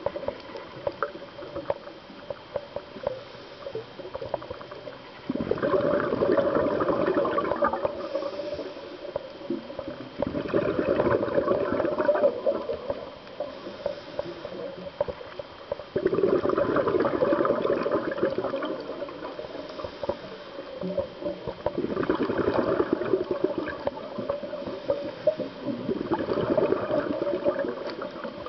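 Scuba diver's exhaled bubbles from a regulator: five long bubbling gushes, about every five to six seconds, with quieter stretches and faint clicks in between.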